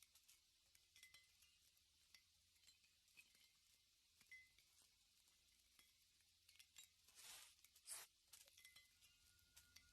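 Near silence, with faint scattered small ticks and clicks and two soft brief brushing sounds about seven and eight seconds in.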